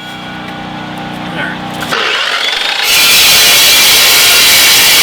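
Dry-cut metal chop saw running with a steady motor hum, then its blade biting into steel bar about two seconds in, the cut turning into a loud, harsh hiss about a second later.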